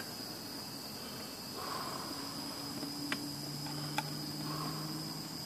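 Handheld butane torch burning with a faint steady hiss and high whine while a steel star washer is heated and melted into a plastic case. Two light metal clicks come about three and four seconds in.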